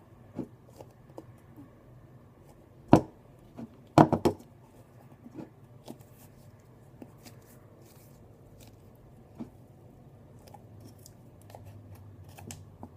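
Slime-making materials being handled: scattered small clicks and taps, with two sharp knocks about three and four seconds in, the second a quick triple.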